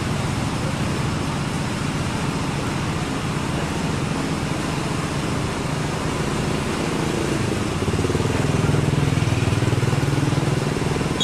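Steady road-traffic noise, with a motorcycle engine getting louder in the last few seconds.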